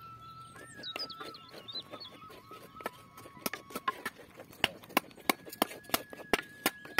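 Wooden spatula stirring thick wet semolina in an earthenware pot, knocking and scraping against the clay in a run of sharp clicks, a few a second, from about halfway through. Behind it there is a faint steady high tone and a few short chirps.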